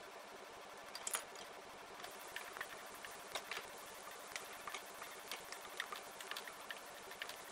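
Chopped onion frying quietly in oil in a nonstick pan, a faint sizzle with irregular small pops and crackles. In the second half a wooden spatula stirs it around the pan.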